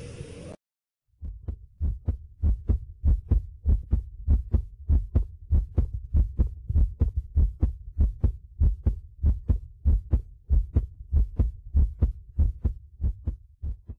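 A heartbeat sound effect: low thumps in quick, even succession, about three a second, following a noisy sound that cuts off abruptly and a short silence.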